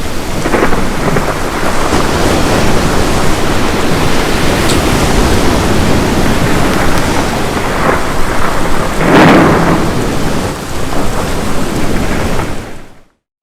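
Heavy rain with rolling thunder, the loudest rumble swelling about nine seconds in; the storm fades in at the start and fades out shortly before the end.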